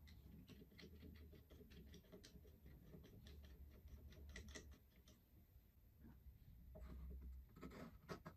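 Faint small clicks and taps as a black plastic knob is turned onto its bolt through a plywood fence, then brief rubbing of plywood on plywood near the end as the fence is set against the jig's arm.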